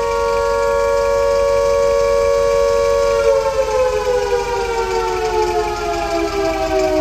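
Civil defence siren sounding a blackout warning: a loud wail held at a steady pitch, then winding down and falling slowly in pitch from about three seconds in.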